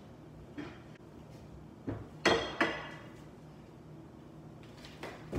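Dishes clinking and clattering as they are taken from a kitchen cabinet: two sharp, ringing knocks about two seconds in, with lighter knocks around them, and a dull thump near the end.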